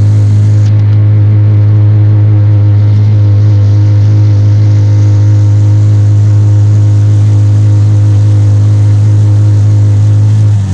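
Auto-rickshaw engine running at a steady speed: a loud, even drone that holds one pitch throughout.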